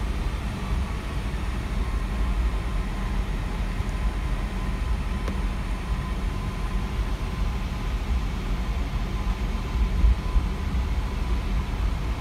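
Steady cabin noise of a Boeing 717-200 taxiing: a deep, even rumble from the rear-mounted engines at taxi power and the airframe rolling, with a faint steady whine.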